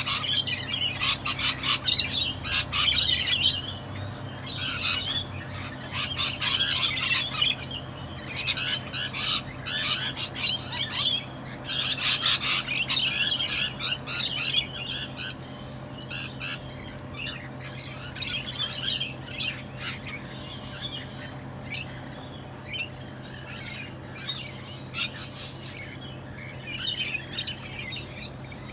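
A flock of parrots squawking and chattering. The calls come thick and fast for about the first half, then thin out to scattered squawks.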